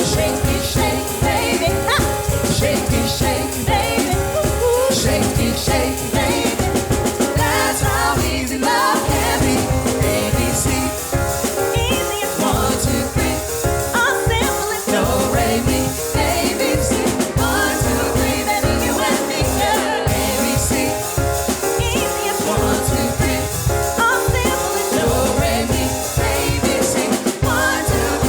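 A vocal ensemble singing with instrumental backing, the bass and drums keeping a steady beat.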